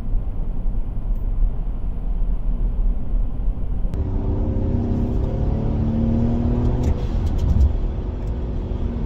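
Car driving at road speed, heard from inside the cabin: steady low road rumble. From about four seconds in, a steady engine drone rides over it.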